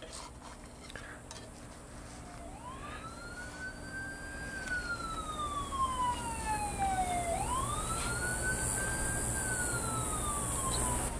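A siren wailing in two slow sweeps, each rising in pitch for about two seconds and sliding back down for about three. A few faint knife scrapes come just before it.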